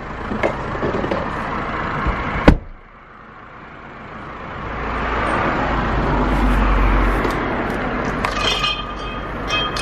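A road vehicle passing: a broad rumble swells up over a few seconds, peaks, then eases away. A sharp knock comes about two and a half seconds in.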